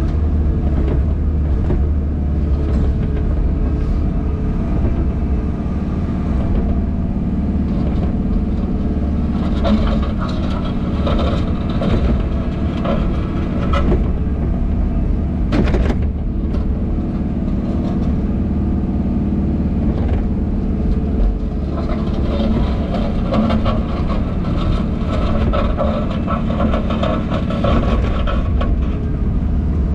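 JCB Pothole Pro's diesel engine running steadily, heard from inside the cab, with two stretches of heavier working sound as the digging arm moves under hydraulic load. One sharp knock comes a little past halfway.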